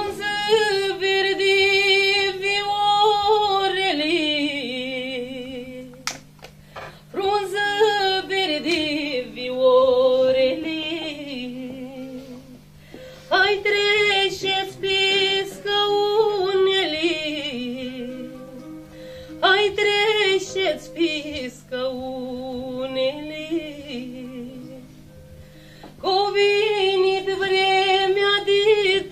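A woman singing a slow Moldovan folk song in five long, held phrases with brief breaks between them, over a steady low drone.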